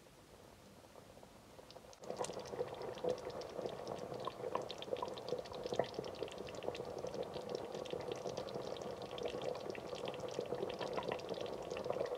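A pot of chicken and chickpea curry boiling in thin gravy on the stove: a steady bubbling with many small pops. It starts suddenly about two seconds in, after near silence.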